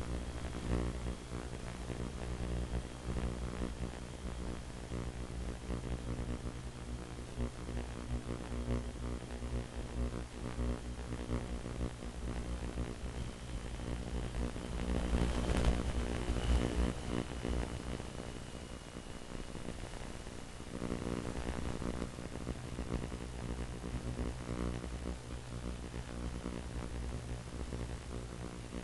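Steady electrical hum made of several fixed tones, over static hiss, picked up on the audio of an FPV video receiver and recorder. A brief swell of hiss comes about halfway through.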